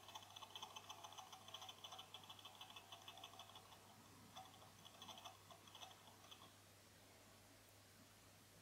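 Cooler Master Seidon 120V liquid cooler running on a bench power supply as its voltage is turned down, giving a faint, fast ticking chatter. The chatter grows sparser and stops about six and a half seconds in, as the motor stalls at too low a voltage.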